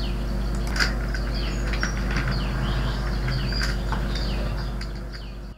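A few computer keyboard keystrokes over a steady low electrical hum, with small birds chirping repeatedly in the background.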